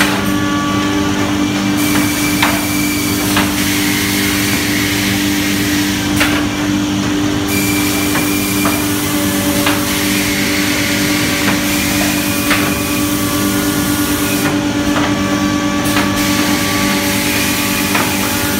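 Six-row woodworking boring machine running: a steady motor hum with a faint whine, a hiss that cuts out briefly three times, and scattered sharp clicks from the feed and drilling heads.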